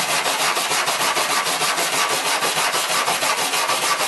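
Small stainless steel wire brush scrubbed rapidly back and forth on bare aluminum sheet, a steady rhythmic scratching of several strokes a second. It is cleaning aluminum oxide and contaminants off the metal before welding.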